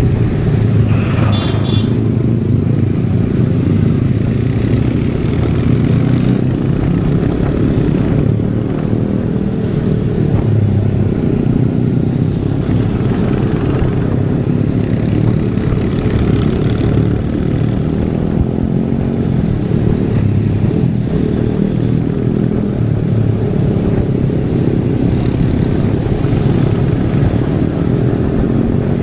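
Royal Enfield Hunter 350's single-cylinder engine and exhaust running steadily under way on the road. A brief higher-pitched sound comes about a second in.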